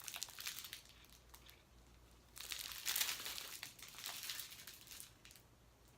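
Small plastic bags of diamond painting drills crinkling as they are handled and sorted, in two spells of rustling, the louder one starting about two and a half seconds in.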